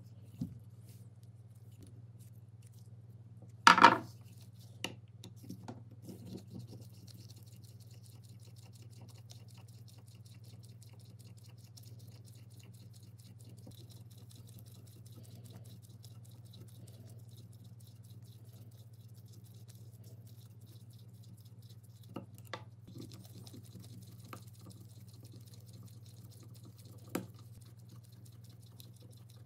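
Screwdriver working screws out of the metal housing of a 1927 Black & Decker electric drill: a faint scraping of the blade, with a few sharp clicks and knocks of metal parts, the loudest about four seconds in. A steady low hum lies under it.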